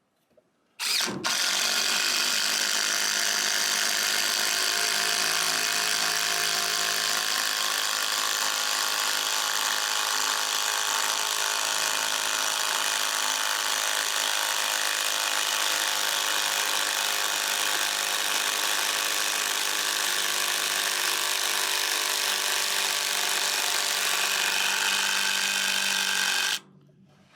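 Cordless drill driving a long screw into a log gusset, running steadily for about 25 seconds before cutting off suddenly near the end, its battery nearly dead.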